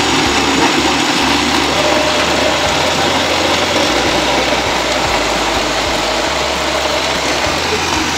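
Electric countertop blender running steadily, grinding green chillies, tomatoes, shallots and garlic with oil into a paste. Its motor note steps up in pitch about two seconds in and drops back near the end.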